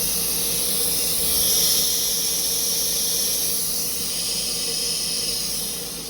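CNC machining center running, giving a steady high-pitched hiss with a faint steady hum beneath; the hiss swells slightly about a second in.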